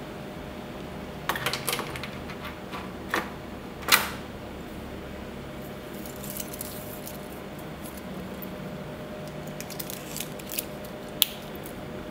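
Stainless-steel watch bracelet with wooden link inlays clinking and clicking as it is handled and put on a wrist: scattered sharp metallic clicks, the loudest about four seconds in, with a few more near the end, over a steady hum.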